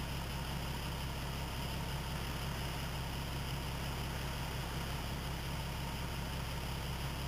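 A 4WD's engine idling steadily, a constant low hum heard from inside the cab, with an even hiss over it.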